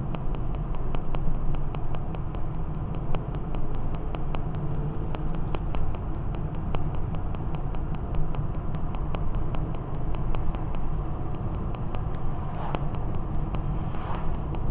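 Steady low drone of a car driving at speed, with engine and tyre noise heard from inside the cabin.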